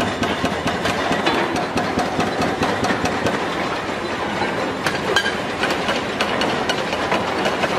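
Machinery running with a dense, rapid clatter of knocks and clanks.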